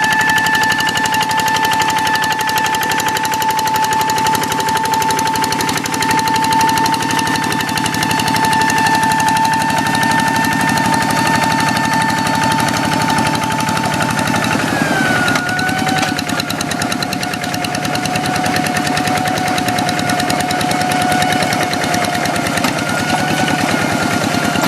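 Kubota single-cylinder diesel engine on a hand tractor running with a rapid, steady knock, over which a high whine ('ngiung ngiung') holds one pitch. About two-thirds of the way through, the whine drops slightly in pitch and then stays there.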